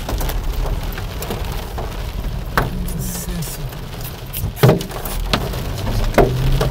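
Heavy thunderstorm rain drumming on a car's roof and windshield, heard from inside the car, with a steady patter broken by sharp, scattered drop hits, one louder hit partway through. A low steady hum of the car runs underneath.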